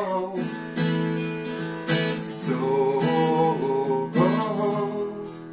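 Acoustic guitar strummed in an instrumental passage, a fresh chord about every second.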